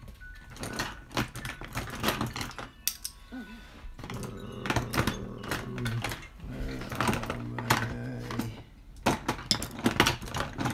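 Small metal RC differential parts clicking and clinking as they are handled and set down on a workbench, in quick runs of light taps. A steady low hum runs underneath for several seconds in the middle.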